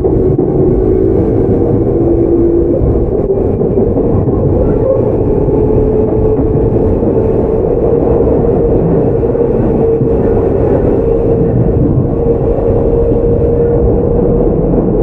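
Onboard running sound of a Tokyu 9000 series electric train with early Hitachi GTO-VVVF traction equipment: a steady rumble of wheels on rail under a motor whine that rises slowly in pitch as the train gathers speed.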